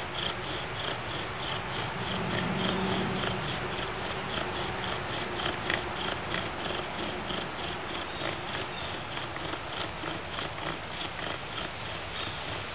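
Tulip poplar bow drill in use: the spindle grinding in the hearth board's socket as the bow is sawed back and forth, a rhythmic friction sound pulsing about four times a second with each stroke.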